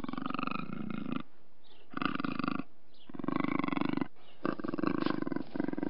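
Puma growling in a run of short pulsing growls, each about a second or less, with brief pauses between them.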